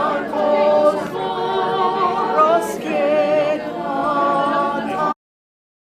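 A group of voices singing a cappella, the held notes wavering with vibrato; the singing cuts off abruptly near the end into silence.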